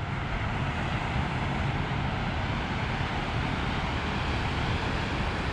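Ocean surf breaking on a sandy beach: a steady rush of noise with a low rumble and no distinct single wave crashes.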